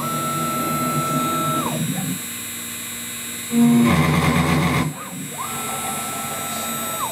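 CNC router spot-drilling aluminium plate. Twice a motor whine rises to a steady high pitch, holds it and falls away as the machine moves between holes, and a louder stretch of cutting about three and a half seconds in marks a drill plunge into the metal.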